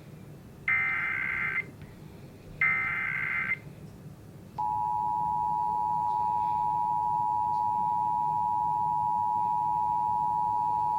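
Emergency Alert System test tones from a TV broadcast: two short bursts of the digital SAME header, each about a second of data tones, then nearly five seconds in the steady two-tone EAS attention signal starts and holds.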